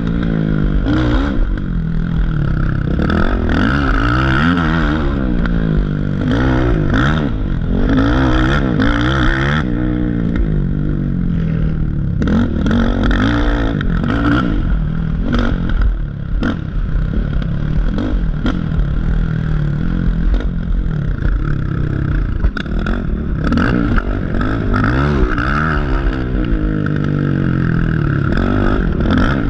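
Race ATV engine revving up and down as the quad is ridden hard over a dirt trail, its pitch rising and falling every second or two, with scattered knocks and rattles over bumps.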